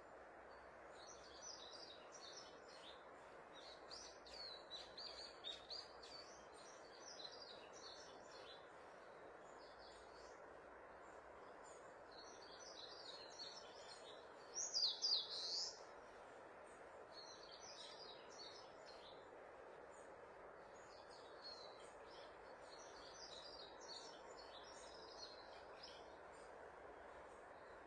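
Small birds chirping and calling on and off over a steady background hiss, with a louder burst of calls about fifteen seconds in.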